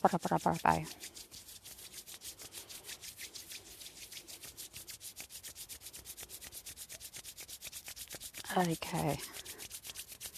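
A fast, even, scratchy rubbing rhythm of several strokes a second, keeping a steady pace.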